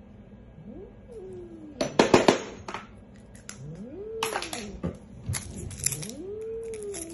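Angry domestic cat growling in drawn-out calls that rise and fall in pitch, broken by sharp hisses about two seconds in and again around four and five seconds in, the first hiss the loudest.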